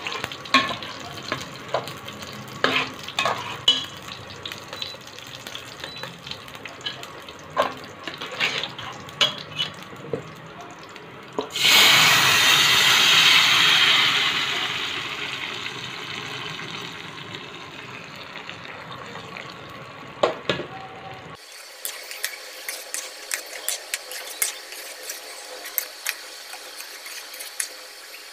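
Tempering of seeds, garlic and dried red chillies crackling and popping in hot oil. About eleven seconds in, cooked dal is poured into the hot tempering and sizzles with a sudden loud hiss that slowly dies away, followed later by light clicking.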